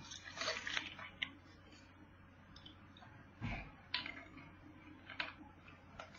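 A person drinking water close to the microphone: faint sips, swallows and small mouth clicks, with a dull thump about three and a half seconds in.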